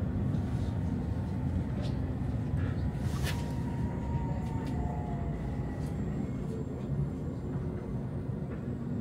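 Steady low rumble of a light-rail tram's wheels and running gear, heard from inside the car. About three seconds in comes one sharp clack, followed by a faint whine that falls slightly in pitch over a couple of seconds as the tram slows toward a stop.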